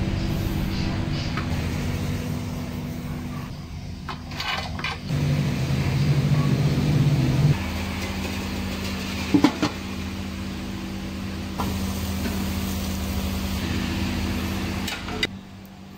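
Steady low machine hum with a few short clatters and knocks.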